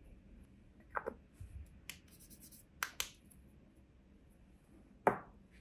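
Hard plastic clicking and tapping as small beads, a plastic pick-up pen and a small plastic paint pot are handled over a muffin tin: a few separate clicks, the loudest near the end.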